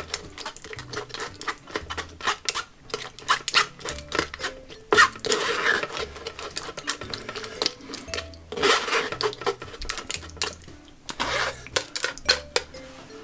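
A metal spoon scraping and pressing wet tamarind pulp through a fine mesh sieve, with many small clicks and knocks of the spoon against the sieve and a few longer scraping strokes every few seconds.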